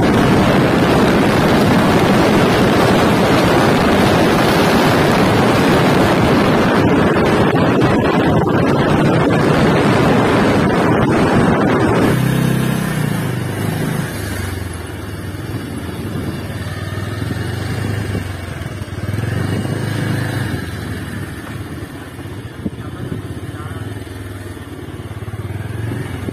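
Wind rushing over the microphone of a moving motorcycle, loud and steady for about twelve seconds. The wind then drops sharply as the bike slows, and its engine running at low speed comes through, rising and falling.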